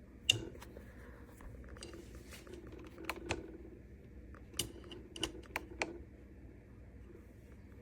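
A series of sharp clicks and taps, like hard plastic being handled: one loud click just after the start, then scattered clicks through the middle.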